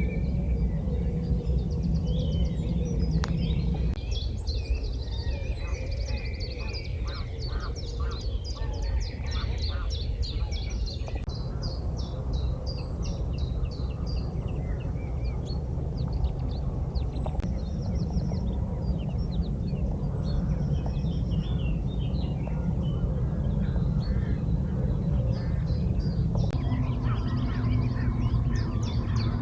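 Wild birds singing and calling, with many quick chirps and trills, alongside waterfowl calling, over a steady low rumble. Near the end a goose-like honking call sets in and carries on.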